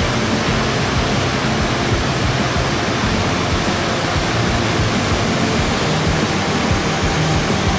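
Muddy floodwater of the swollen Chikugo River rushing and churning over a river weir in a loud, steady roar of white water.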